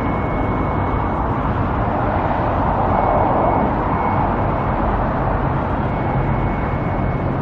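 Steady road traffic noise, with a vehicle passing that swells and fades in the middle.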